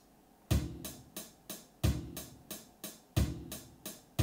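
Drum-machine loop of sampled kick drum and hi-hat, played back from a Cables.gl patch. It starts about half a second in, with hi-hat ticks about three times a second and a kick on every fourth tick.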